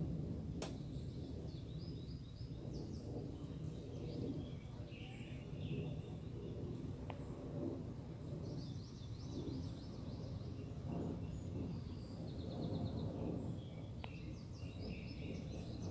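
Several birds chirping and trilling in short repeated phrases over a steady low rumble.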